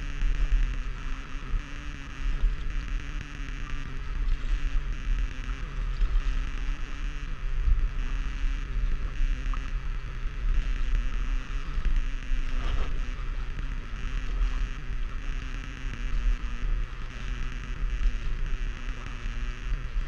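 Wind buffeting the microphone over open water, a heavy, uneven rumble, with a steady low hum and water noise underneath.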